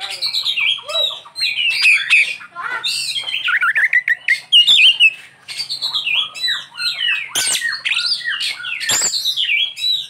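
Oriental magpie-robin (kacer) singing a long, fast run of varied whistles and chirps, with a short break about five seconds in. It is a full song packed with learned phrases (isian).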